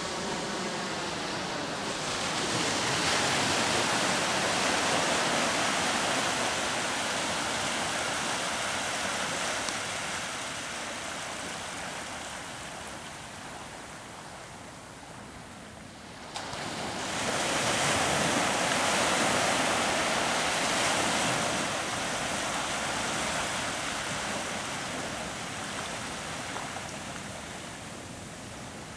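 Ocean surf breaking and washing on a sandy beach: a steady hiss of waves that swells and fades twice, the second swell beginning suddenly about halfway through.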